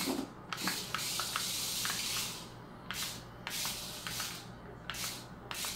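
Adventure Force Stunt Runner toy RC car driving on tile floor: its small electric motors whir in repeated short bursts as the throttle is pressed and released, with a few light clicks and knocks.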